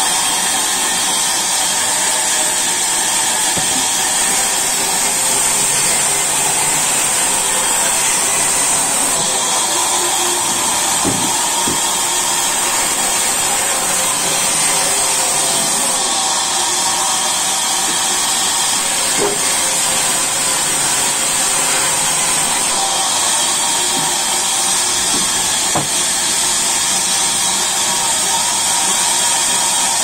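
Large sawmill band saw running steadily while its blade cuts lengthwise through a log, a loud, even noise with a steady high whine over it.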